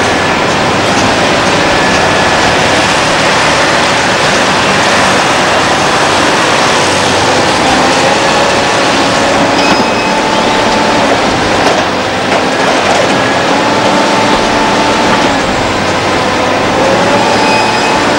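Liebherr R962 hydraulic crawler excavator working under load: heavy diesel running steadily with a hydraulic whine that rises and falls as it digs and swings, and a few knocks of rock and steel in the bucket and truck bed.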